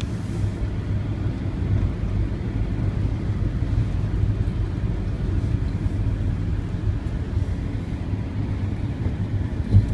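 Road noise heard from inside a moving vehicle's cabin: a steady low rumble of engine and tyres.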